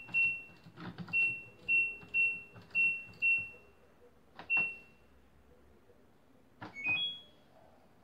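Washing machine control panel beeping as its buttons are pressed to set the wash. There are about seven short, high beeps, roughly half a second apart, each with a soft click of the button. Near the end comes a quick rising three-note chime.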